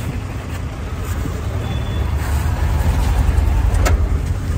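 Auto-rickshaw engine running, heard from inside the cabin, getting louder over the first few seconds, with a sharp knock near the end.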